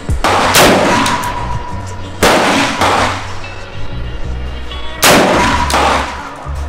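Three shots from a muzzle-braked 5.56 AR-15 with a 10.5-inch barrel, fired about two to three seconds apart, each followed by a ringing echo, with background music underneath.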